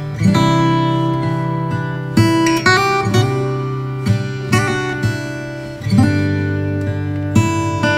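Instrumental background music with sustained chords, a new chord or note sounding every second or so.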